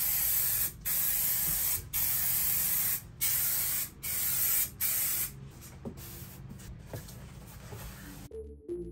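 Aerosol can of spray adhesive hissing in repeated bursts of about a second each, five strong sprays in the first five seconds, then softer, shorter sprays. Music comes in near the end.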